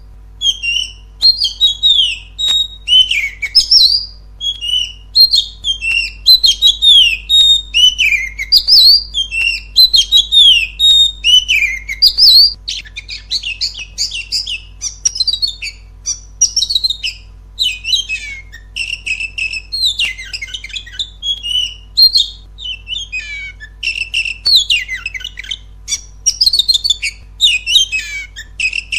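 Oriental magpie-robin (kacer) singing loudly and without pause, in varied whistled phrases. The first half is mostly long falling slurs. From about halfway it shifts to quicker, rattling trills.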